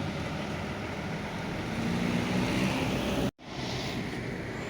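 Intercity bus diesel engine running as the bus moves off, with road and wind rumble, the engine note rising a little about two seconds in. The sound cuts out for a split second about three seconds in, then resumes.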